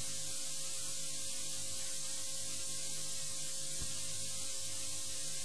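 Steady electronic hiss with a thin steady hum tone underneath: a dead broadcast audio feed carrying only static while the vehicle's sound equipment is out.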